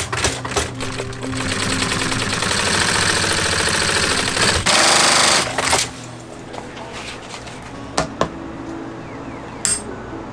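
Industrial cylinder-arm leather sewing machine stitching a boot upper: a rapid stitching rhythm that speeds up into a steady run, ending in a loud burst and stopping about six seconds in. A few sharp taps follow near the end.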